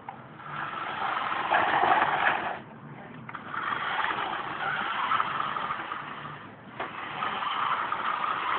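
Remote-control toy Jeep's electric drive motor and gears whirring as it drives, in three spells with brief stops between them.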